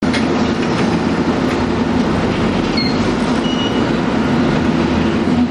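Keifuku Mobo 101-type tram car running on the rails, with a steady growl from its nose-suspended (tsurikake) traction motors and gears under the wheel and rail rumble, heard from inside the cab. A couple of brief high tones come about three seconds in.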